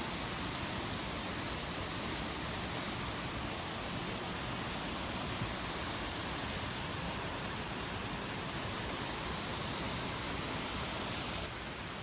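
Waterfall's steady rush of falling water, even and unbroken, dropping slightly in level near the end.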